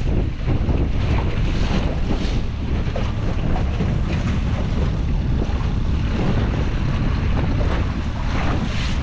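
Strong wind buffeting the microphone in a steady low rumble, with water splashing against a small boat's hull.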